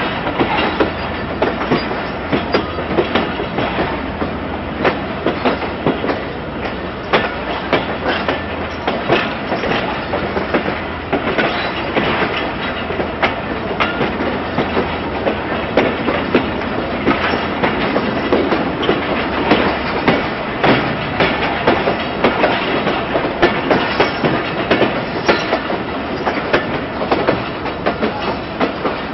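Passenger train coach wheels running over the rails, heard from the coach's window: a steady rolling rumble with frequent, irregular sharp clacks as the wheels cross rail joints and pointwork.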